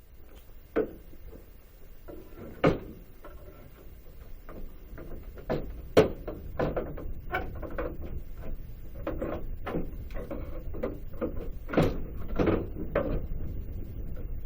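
Hammer and pry bar working nails out of a hardwood pallet board: scattered wooden knocks and taps, with a few sharp, louder strikes, the loudest about six seconds in.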